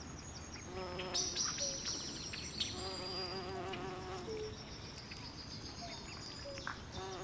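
Night swamp chorus: insects buzzing and trilling in a high steady band, with frogs giving wavering trilled calls several times lower down, over a steady low hiss.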